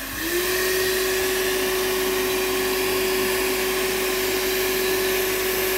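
Hand-held electric hair dryer running with its air intake covered by a taped-on face mask, rigged as a makeshift vacuum. Its motor whine rises just after the start and then holds steady over a constant rush of air.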